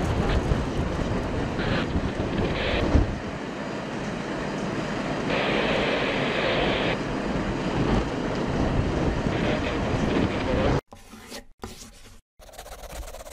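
Wind buffeting the microphone over fire engines running at a fire scene, with a loud thump about three seconds in. About eleven seconds in it cuts off suddenly to short, choppy sound effects that come and go.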